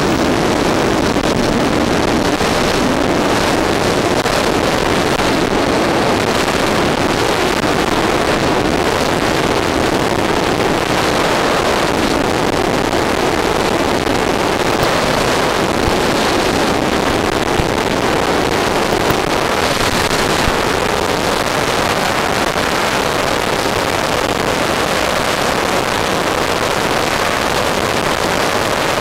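RC F-14 Tomcat model in flight, picked up by its onboard FPV camera: a loud, steady rush of motor noise mixed with wind on the microphone.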